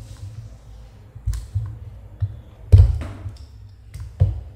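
Irregular plastic clicks and knocks as the back cover of a small pan-tilt Wi-Fi security camera is worked off its body and handled on a table, the loudest knock a little under three seconds in.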